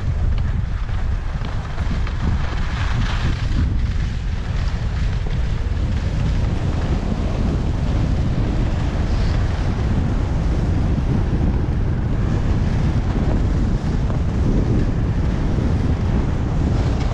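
Steady wind rumble on the microphone of a skier's own camera during a downhill run, mixed with the hiss of skis sliding over groomed snow.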